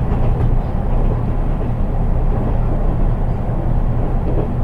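Steady running noise inside a JR East 183 series electric train, heard in the KuHa 183 driving trailer car: a continuous low rumble of wheels on rail and car body. This car carries no traction motors, so there is little motor whine.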